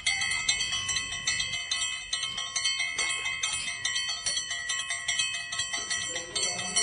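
Background music of bright bell-like chimes, notes struck in quick succession and ringing on over one another.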